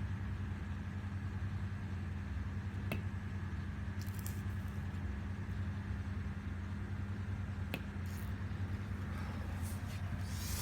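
BMW 320d's four-cylinder diesel engine running at a steady idle, with two faint clicks about three and eight seconds in.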